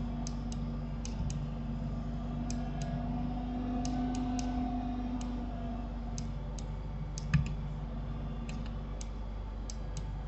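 Irregular clicks of a computer mouse and keyboard, about two a second, over a steady low hum; one louder knock about seven seconds in.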